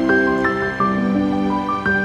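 Instrumental background music: chords of held notes that change about every half second.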